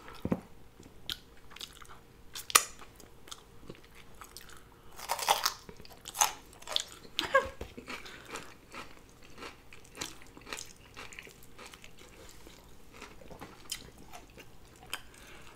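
A person eating close to the microphone: French fries and a double cheeseburger bitten and chewed, with irregular wet mouth clicks and short crunches. Two louder crunches stand out, one about two and a half seconds in and one about five seconds in.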